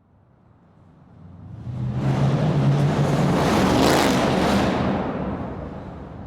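A muscle car driving past: its engine grows from faint to loud over about two seconds, peaks, then fades as it moves away.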